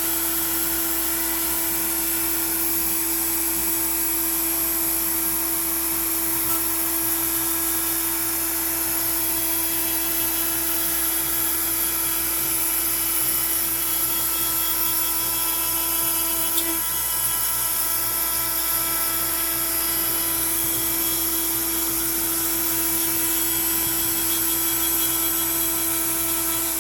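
Makita router spinning a 1/4-inch upcut bit at about 18,000 rpm while the Onefinity CNC feeds it slowly, at 60 inches per minute, through pine: a loud, steady high-pitched whine with a hiss of cutting.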